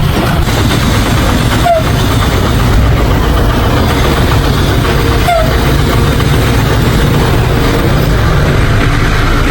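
Heavy earthmoving machine's diesel engine running steadily under load, with two short squeaks and clicks about three and a half seconds apart.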